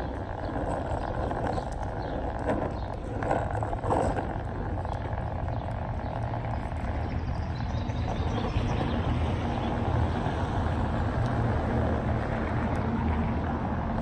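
Small wheels rolling along an asphalt path with a steady low rumble, growing a little louder about halfway through.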